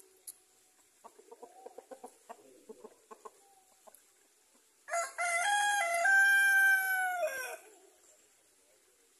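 A rooster crows once, loud, for nearly three seconds: two short notes, then a long held note that drops at the end. Before the crow, a chicken gives a quick run of short clucks.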